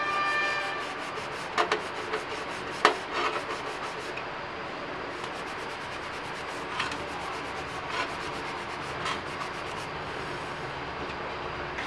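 Soapy sponge scrubbing a stainless steel plate over a steel sink, a steady rubbing with occasional sharp clinks of metal dishware, the loudest about 1.5 and 3 seconds in.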